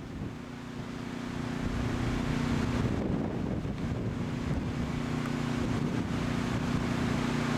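Gusty wind buffeting the camcorder microphone. Under it a steady motor hum sets in about a third of a second in and holds.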